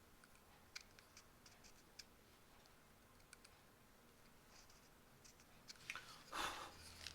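Knife whittling ginkgo wood: faint, scattered small cutting ticks, then one louder shaving scrape a little over six seconds in.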